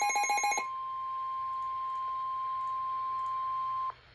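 Rapid electronic alarm beeps, about ten a second, stop just after the start. A steady single-pitch tone follows for about three seconds and then cuts off with a click: the NOAA Weather Radio 1050 Hz warning alarm tone that comes before a weather warning message.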